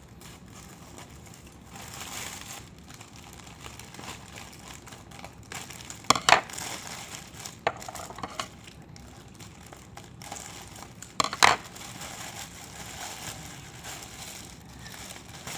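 Gift packaging being opened by hand: wrapping rustling and crinkling throughout, with two loud sharp sounds about six and eleven seconds in.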